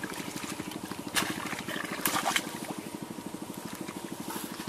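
Bare feet splashing and squelching in shallow muddy water a few times, over a steady, fast pulsing drone.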